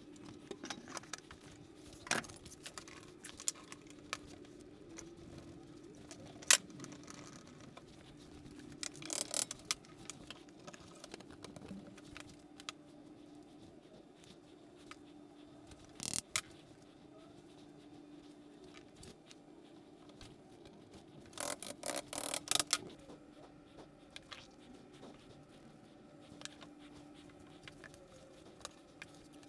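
Workshop handling noises: scattered clicks, taps and metallic clinks of small parts and tools being picked up and set down, with a quick run of clinks about nine seconds in and another around twenty-two seconds. A faint steady hum sits underneath.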